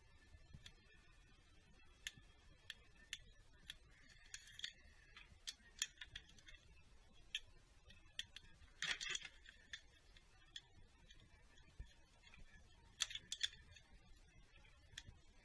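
Faint, irregular clicks and taps of a screwdriver working on engine parts, with a short burst of scraping clicks about nine seconds in and two sharper clicks a few seconds later.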